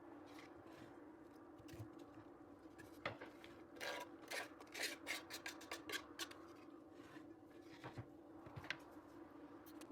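Red cabbage being handled and cut, with crisp crackles and rustling that cluster from about three to six seconds in.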